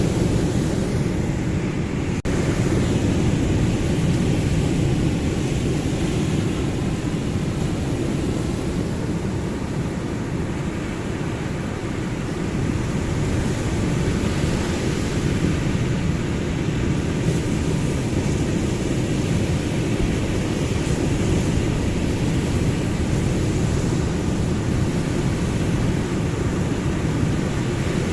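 Ocean surf: a steady, deep rumbling wash of waves that swells and eases slowly.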